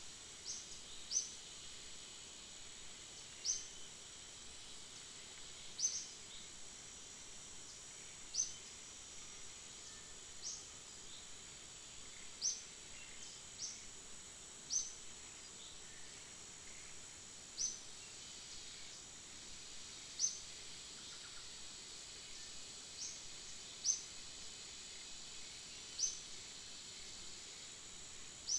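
Outdoor woodland ambience: a steady high-pitched insect drone, with short rising chirps repeated every two to three seconds.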